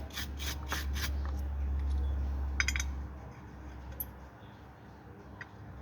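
Hand-tool work on a VAZ-2106 rear brake drum: a run of quick, evenly spaced metallic clicks that stops about a second in, then a short cluster of clicks and a couple of single taps, over a low rumble that fades partway through.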